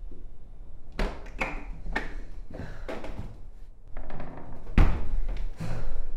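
A run of sharp knocks about every half second, then a heavier thud with a deep low end about five seconds in, over a steady low hum.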